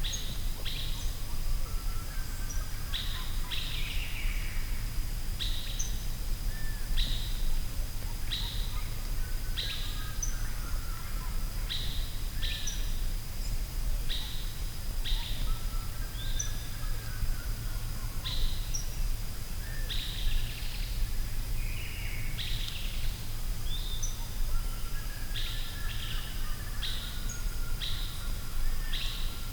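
Forest ambience: birds calling, with short high calls repeating about once a second and softer lower chirps among them, over a steady low rumble and a faint steady high tone.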